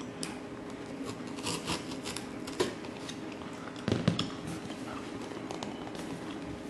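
A blade slitting the seal sticker on a cardboard box, then the box being handled and opened: light scrapes and clicks, with a louder knock about four seconds in.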